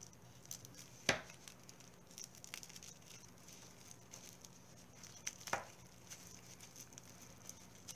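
Faint crinkling and ticking of a thin red plastic bag being slit open with a sharp Kershaw folding knife, with two louder clicks, about a second in and a little past halfway.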